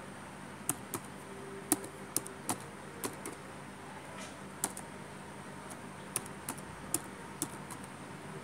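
Computer keyboard being typed on: about a dozen sharp key clicks at uneven intervals as a password is entered, over a faint steady hum.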